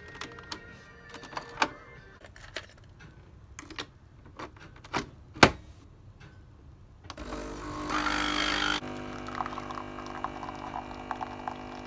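Nespresso capsule coffee machine: a series of clicks and taps as it is loaded and its buttons are pressed, then about seven seconds in its pump starts with a loud buzz. After a second and a half the buzz settles into a steady hum as the espresso pours.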